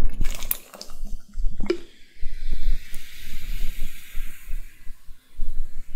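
Cola poured from a plastic bottle into a glass: the liquid splashes in and the carbonation fizzes with a steady hiss. A few knocks come from the glass being handled near the start.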